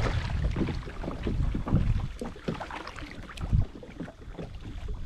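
A kayak on open water: wind buffeting the microphone in a low rumble, with irregular water splashes and a few sharp knocks.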